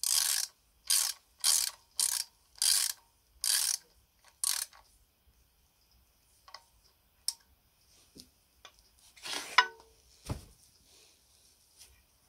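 Ratchet wrench clicking in about seven quick back-strokes over the first four and a half seconds, turning a socket on the nut at the pivot of a clay-pigeon trap's throwing arm. Later come a few faint ticks, a short metal scrape and a knock.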